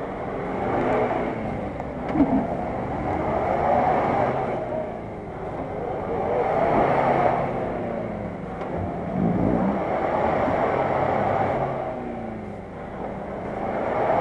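Nissan Patrol's engine revving in repeated surges, rising and falling every few seconds, as the SUV works its wheels in a deep mud rut.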